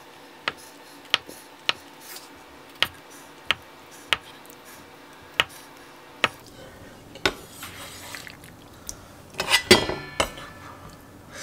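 Kitchen knife cutting a block of tofu on a wooden cutting board: the blade taps the board sharply with each cut, about nine taps in the first six seconds. Softer handling follows, then a louder clatter of the knife and board a little before the end.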